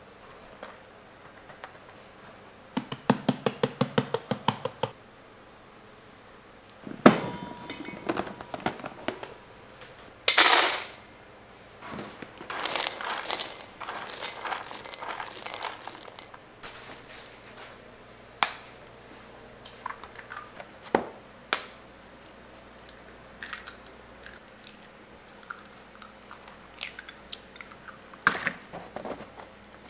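Kitchen prep on stainless steel bowls. A spoon taps quickly about a dozen times, a knock and a loud clattering rush follow, then chopped almonds rattle and clink in a steel bowl for a few seconds. Scattered taps and clicks come after, with sharp cracks near the end as eggs are broken into a bowl.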